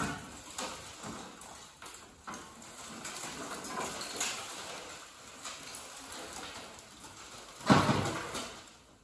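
Bare MG Midget steel bodyshell being turned by hand on a rotisserie spit: scattered knocks and clanks from the shell and the spit's pivot, with one louder clunk near the end.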